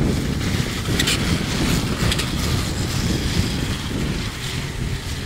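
Wind buffeting the microphone over the running of two battery-electric snowmobiles launching and pulling away down a snow drag strip, with a hiss from their tracks on the snow and brief higher squeals about one and two seconds in.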